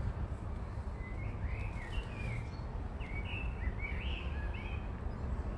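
A songbird singing a quick run of short, rising and falling whistled notes, starting about a second in and stopping near the end, over a steady low rumble of outdoor background noise.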